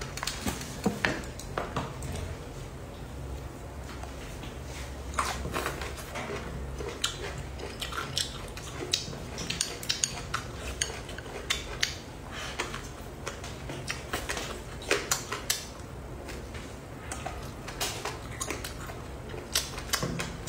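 Chopsticks clicking and scraping against a ceramic bowl of food in scattered, irregular light taps.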